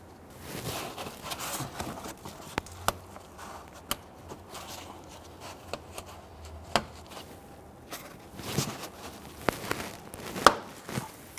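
A plastic fender liner being pressed and shifted by gloved hands, its plastic rubbing and scraping against the bumper and wheel well, with scattered sharp clicks and taps. The loudest click comes near the end.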